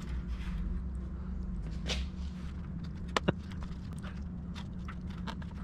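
Vinyl garage door bottom seal being worked into its retainer track by hand: scraping and rustling with scattered small ticks and two sharp clicks about three seconds in, over a steady low hum. The seal's T-shaped edges are catching in the slot as they are fed in.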